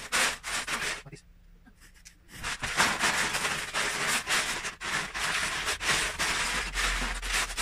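Loose Lego bricks clattering and rattling as hands rake through plastic storage tubs full of them: a dense run of small plastic clicks that eases off about a second in and picks up again around two and a half seconds in.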